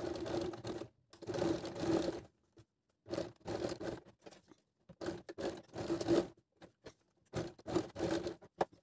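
Domestic electric sewing machine stitching in short runs, starting and stopping about five times as it sews back and forth across the overlapped ends of an elastic band to join it into a loop.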